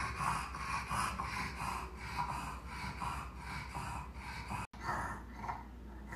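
Bulldog snorting as it breathes: rapid, noisy breaths about two or three a second. The sound drops out for an instant about three-quarters of the way through.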